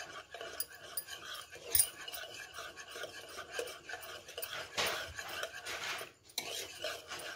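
Utensil stirring mango purée and oil round a plastic bowl, scraping the bowl's sides and bottom in quick, uneven strokes, with a sharp click about two seconds in and louder scrapes near the end.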